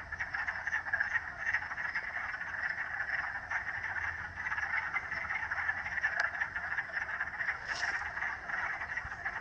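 A chorus of many frogs calling at once: countless overlapping croaks merge into one dense, unbroken din that holds steady.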